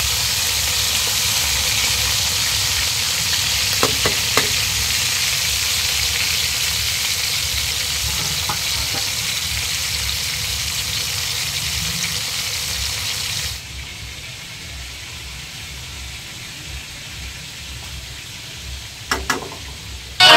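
Pieces of tulingan (bullet tuna) frying in hot oil in a pan, a steady sizzle that drops suddenly to a quieter level about two-thirds through. A few knocks sound near the end.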